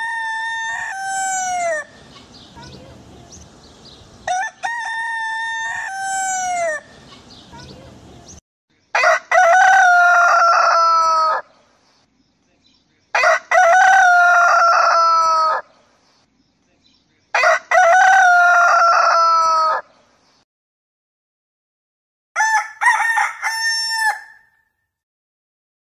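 Kampung roosters (Indonesian village chickens) crowing at dawn. About six long cock-a-doodle-doo crows come one after another a few seconds apart, and the middle three are the loudest.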